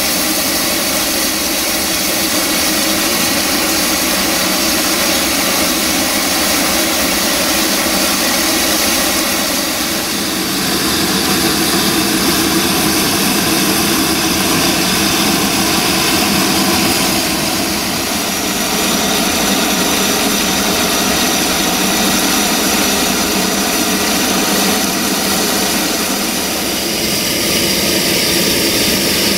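A steady, loud rushing noise from a narrow-gauge steam train, with no clear beat, shifting slightly in tone about ten seconds in.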